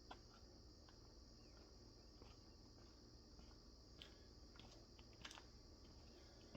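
Near silence with a steady high cricket chirring in the background and a few faint scattered clicks.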